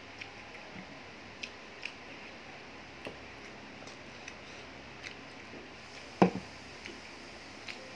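Eating with the hands: scattered small clicks and smacks of chewing and of fingers working food on a plate, with one louder knock about six seconds in.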